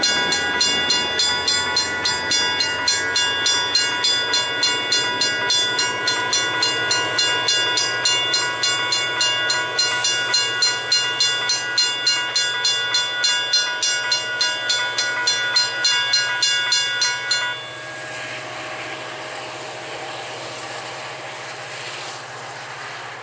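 A bell rings rapidly, about three strokes a second, over the steady hum and rising whine of an MBTA commuter train's diesel locomotive. The bell stops suddenly well past halfway through. After that comes a lower, even rumble of a diesel locomotive working.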